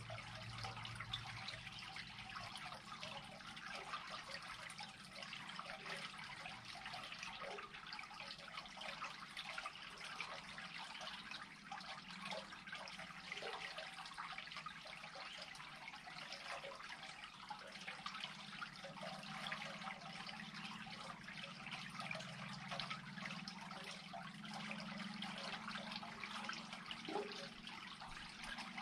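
Water draining through an unclogged culvert: a faint, steady running-water sound with many small scattered drips.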